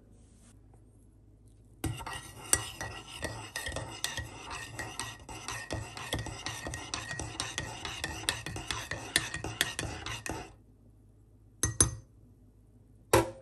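Metal spoon stirring coffee in a ceramic mug, clinking quickly and continuously against the sides for about eight seconds. A couple of short, sharp clinks follow near the end.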